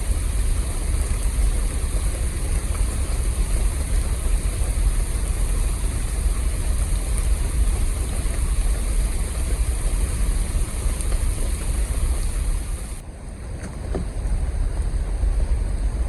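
Wind buffeting the microphone as a steady, gusting low rumble, over a high steady hiss that cuts off suddenly about thirteen seconds in.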